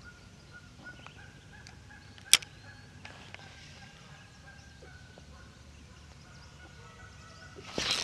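Quiet open-water ambience with one sharp click about two seconds in, then a sudden rush of handling noise near the end as the rod and camera are swung.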